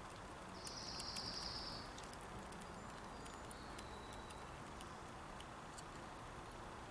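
Fox squirrel nibbling and chewing seeds at a feeder: scattered small sharp clicks over a soft outdoor hiss. A high buzzy trill sounds briefly about a second in and is the loudest thing heard.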